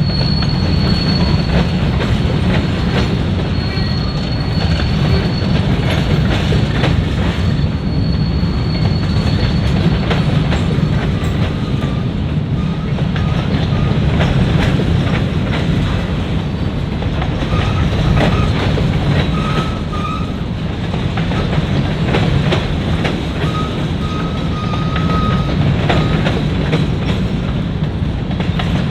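Freight train of grain hopper cars rolling past: a steady rumble with the clack of wheels over rail joints, and brief high wheel squeals now and then.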